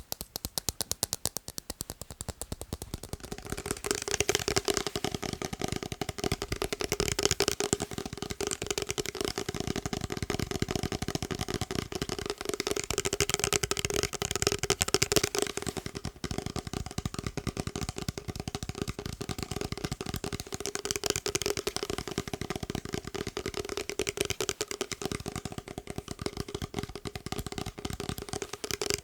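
Fast, continuous tapping on a hard object, a dense run of quick taps with one steady ringing note under them, getting louder about three seconds in.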